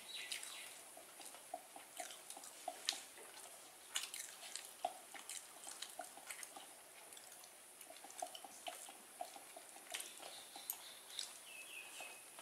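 Faint eating-by-hand sounds: irregular small clicks and taps of chewing and of fingers working rice on a plate. A couple of brief high chirps come at the start and again near the end.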